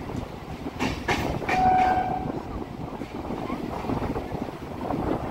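MMTS suburban electric train running, with a steady rumble and a couple of sharp wheel clacks about a second in. A brief steady tone sounds for under a second just after.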